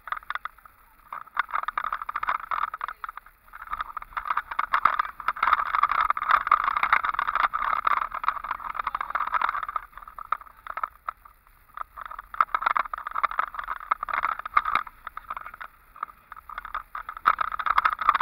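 Car driving over a rough dirt road, heard from inside: a rattling, scraping noise of the body and tyres over the bumpy surface that swells and eases in stretches.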